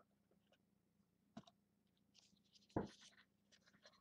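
Faint scraping and rustling of cardboard and plastic as a thick trading card in its case is slid out of its box, with a light tap a little over a second in and a louder knock near three seconds.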